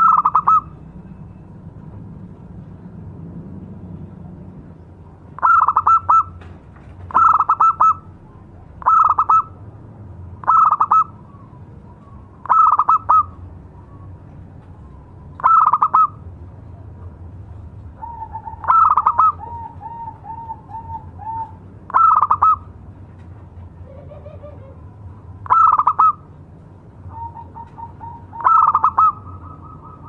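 Zebra dove (perkutut) cooing: a call repeated about every two to three seconds, with quick runs of short, softer notes between some of the calls.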